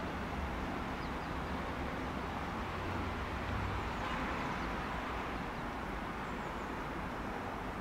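Steady railway-station background noise: an even rumble with a low hum underneath, no distinct train event standing out.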